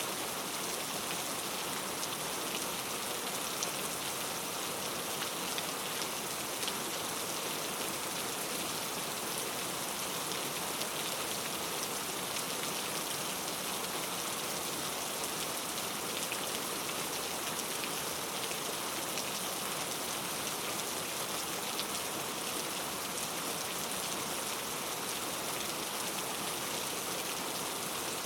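Steady, even rainfall, a constant hiss with a few separate drops ticking through it here and there.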